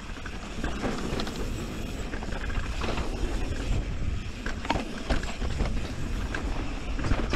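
Enduro mountain bike ridden down dirt singletrack: wind rumbling on the camera microphone over the tyres rolling on dirt, with scattered clicks and rattles from the bike over bumps.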